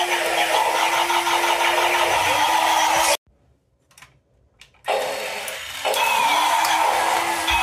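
Battery-powered toy robots walking, their small motors and plastic gears running with a steady whirring drone. About three seconds in the sound drops out almost to silence for under two seconds, then the whirring starts again.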